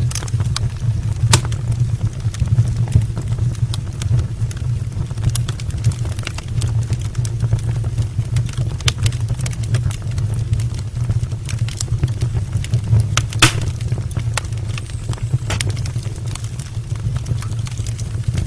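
Wood fire burning in an open brick fireplace: a steady low rumble of flames with scattered sharp crackles and pops from the logs, two louder pops about a second in and again about two-thirds of the way through.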